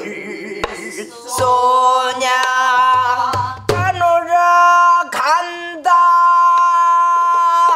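A woman singing in Korean folk-song (minyo) style, holding long notes that bend down at their ends, accompanied by a few stick strokes on a soribuk, the barrel drum of pansori.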